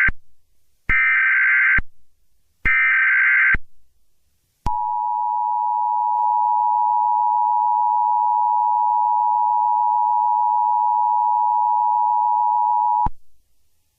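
Emergency Alert System SAME header: screeching digital data bursts about a second long with short gaps, the tail of one and then two more. It is followed by the EAS attention signal, a steady two-tone beep held for about eight seconds before it cuts off sharply.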